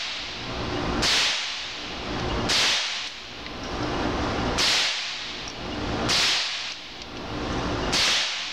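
Ruger 10/22 semi-automatic .22 LR rifle fired five times at an unhurried pace, one and a half to two seconds apart. Each shot is a sharp crack that rings briefly off the walls of the indoor range, over a steady low hum.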